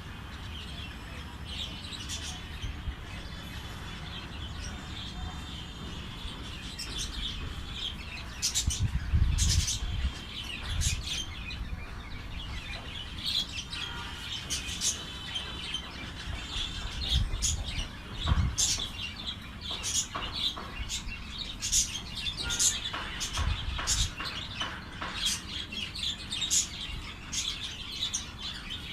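Small birds chirping: many short, sharp high calls, coming thicker in the second half, with a few low thumps in between.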